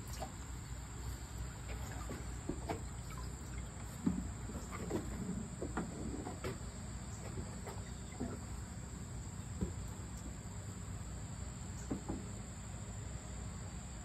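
A steady high-pitched insect trill, with a few faint clicks and knocks scattered through it.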